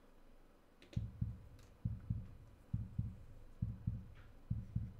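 Low, short double thumps in a steady heartbeat rhythm, about one pair a second, starting about a second in: a heartbeat suspense sound effect.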